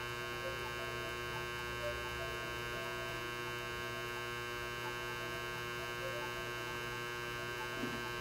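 Steady electrical mains hum with a buzzy edge, holding at an even level throughout.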